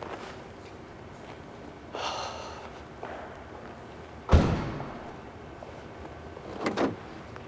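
A heavy thump just past four seconds in, like a door being shut. It is preceded about two seconds in by a short pitched sound and followed near the end by two lighter knocks.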